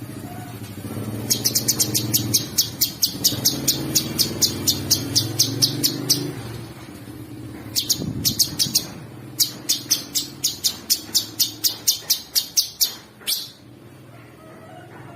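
Cucak sungkok singing a rough, rapid-fire 'ngebren' song: sharp, high chirps repeated about four or five a second in two long runs, with a short break about six seconds in, over a steady low hum.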